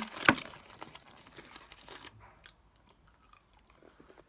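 A sharp crunch about a third of a second in, then someone chewing a piece of Terry's Chocolate Orange, with small crackles that fade away.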